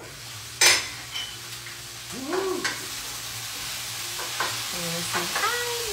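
Food frying in an oiled pan: a steady sizzle that grows louder about two seconds in, with a sharp clack about half a second in.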